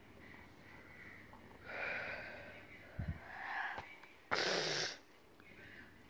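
Breathy, whispered sounds and breathing close to the microphone, with a short, loud hiss a little over four seconds in.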